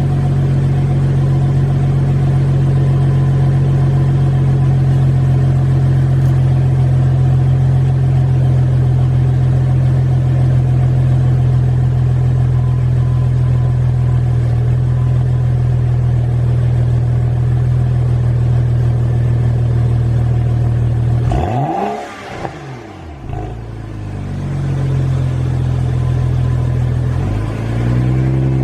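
An engine running at a steady speed. About 21 seconds in the revs drop sharply, then build back up, and near the end they rise and fall a few times.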